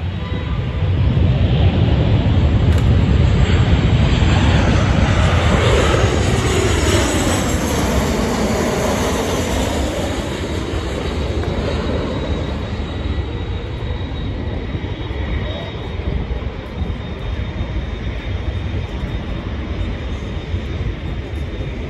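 Boeing 737-700 jet airliner with CFM56 engines on final approach passing low overhead: the engine noise swells about a second in, a whine falls in pitch as it goes by, and the sound slowly fades as the plane moves away toward the runway.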